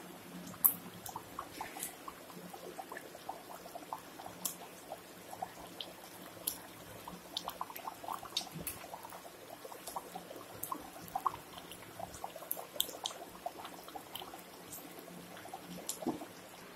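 Pot of chicken curry boiling: bubbles bursting through the thick gravy in small, irregular pops, several a second, one sharper pop about a second in.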